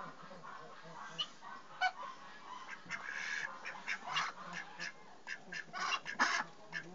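Indian Runner ducks quacking in short, irregular calls, most of them bunched about three to four seconds in and again near the end.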